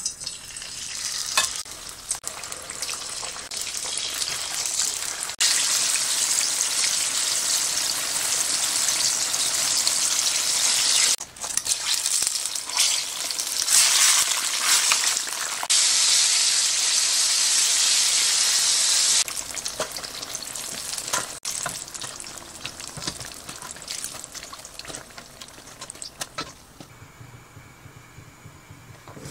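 Battered eggplant slices deep-frying in a wok of hot oil: a loud, steady sizzling hiss full of crackles. About two-thirds of the way through it drops to a softer crackle, which dies away near the end.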